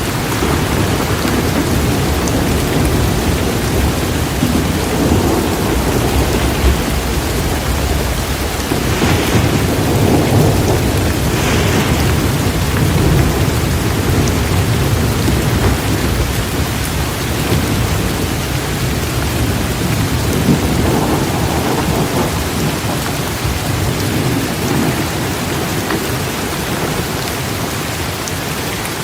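Heavy rain pouring steadily, with a low rolling rumble of thunder that swells about a third of the way in and then eases.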